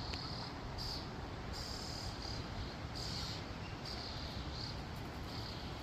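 Insects chirping in short high-pitched trills, about six in a few seconds, over a low rumble.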